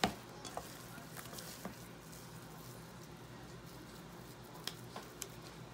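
Hands kneading raw ground beef in a stainless steel bowl: faint soft squishing with a few small clicks.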